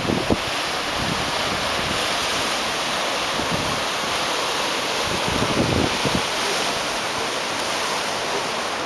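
Surf breaking and washing over sandstone rocks: a steady rush of sea noise, with wind gusting on the microphone in low thumps now and then.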